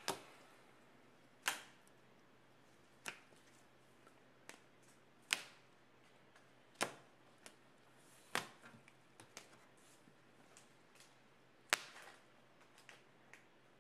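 Sharp clicks and light taps, irregular at about one every one to two seconds, from trading cards and card holders being handled and set down on a table.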